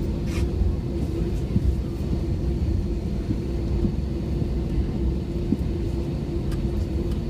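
Steady low rumble with a constant hum inside an Airbus A321 airliner cabin, its jet engines running at low power, with a few faint clicks.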